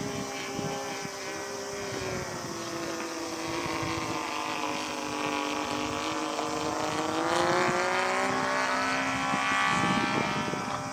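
Radio-controlled model airplane in flight, its motor and propeller droning. The pitch sags after a couple of seconds, stays low, then climbs and grows louder about seven seconds in. Gusty wind rumbles on the microphone underneath.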